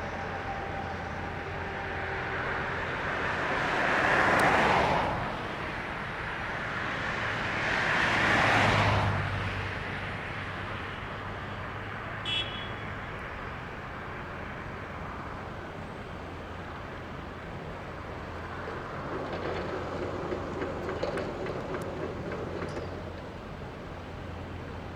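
Two vehicles pass close by in turn, each a rising and fading whoosh, about four seconds apart, over a steady low hum. A short high beep sounds about halfway through, and a rougher rumble with small clicks comes near the end.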